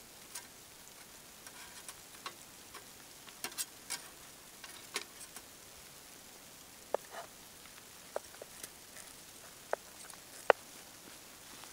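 Metal tongs and a knife clicking and clinking against a steel grill grate and each other while grilled salmon steaks are lifted off and cut, over a faint sizzle. A few sharp ringing clinks come in the second half, the loudest near the end.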